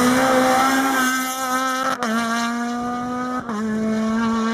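Honda Civic rally car engine running hard at a steady high pitch, dropping sharply twice, about two seconds in and again a second and a half later, as the driver shifts up under acceleration.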